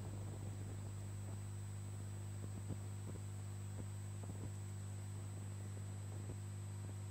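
Faint steady electrical hum, a low buzz with a thin high-pitched whine over it, and a few faint ticks.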